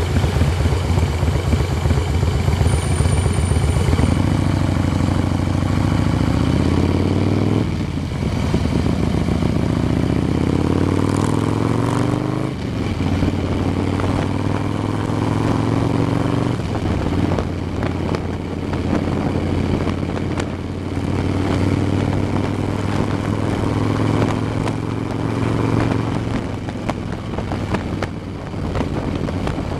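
Motorcycle engine on the move, accelerating through the gears: its pitch climbs, drops sharply at a gear change about eight seconds in and again about twelve seconds in, then runs steadier with smaller rises and falls.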